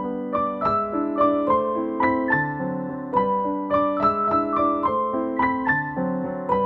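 Background piano music: a steady, flowing run of single notes, several a second, over held lower notes.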